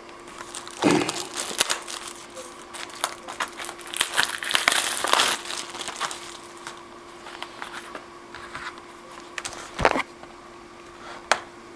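Crinkling, rustling handling noise with scattered clicks, busiest in the first half, and one more click near the end, as the camera and set-up are fumbled with. A faint steady electrical hum runs underneath.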